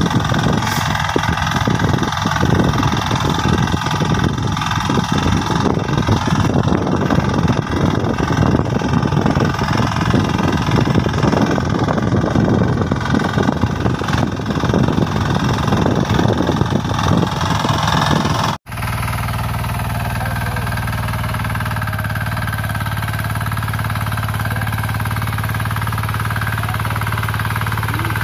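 Small diesel engine of a power weeder running, rough and uneven. About two-thirds of the way through it cuts abruptly to a steadier, lower hum of another power weeder's engine running.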